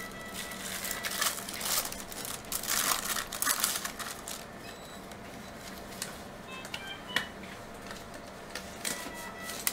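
Crinkling and rustling of plastic or paper in bursts over the first few seconds, followed by a few sharp clicks.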